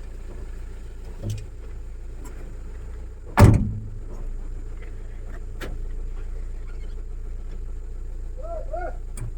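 Mahindra Bolero Pickup's diesel engine running at low revs, heard from inside the cab on a rough track. There is one loud thud about three and a half seconds in, and a few lighter knocks, as the truck jolts over bumps.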